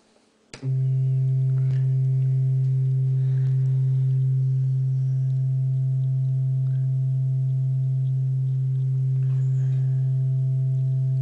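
Low, steady sine-wave test tone from a function generator, played through a Class B transistor amplifier with negative feedback and a small MTX loudspeaker, with faint overtones above it. It comes on with a click about half a second in. The feedback loop is correcting the Class B stage's crossover distortion, so the tone comes out as a nearly clean sine.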